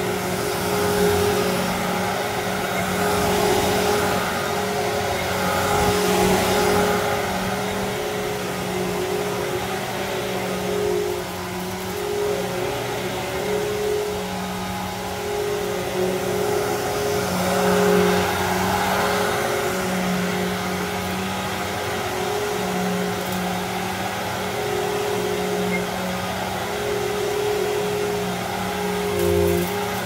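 Riccar Vibrance Classic upright vacuum cleaner running on carpet: a steady motor hum with two held tones, swelling and dipping every few seconds as it is pushed back and forth.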